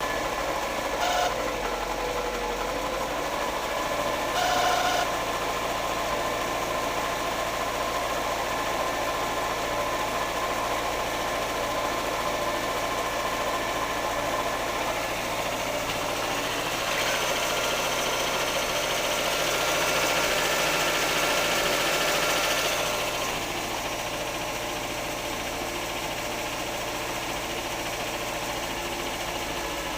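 VAZ-2108 (Lada Samara) engine running cold, with a steady high-pitched whistle over it. The sound grows louder for several seconds after the middle, then settles back. Two short sharp sounds come about a second in and again about four seconds later.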